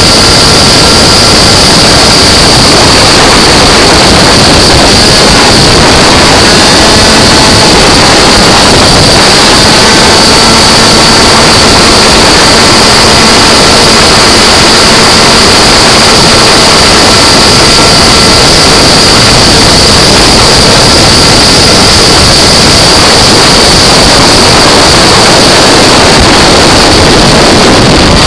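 Malossi 77cc two-stroke engine of a Piaggio Zip SP racing scooter running hard at racing speed, heard from a camera mounted on the scooter, very loud and overloading the recording, mixed with rushing wind noise.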